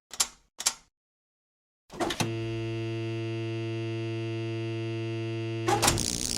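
Staged electrocution sound effect: two short scuffs near the start, then silence. About two seconds in, a couple of clicks switch on a steady electrical hum-buzz. Near the end it breaks into a loud crackling burst of noise.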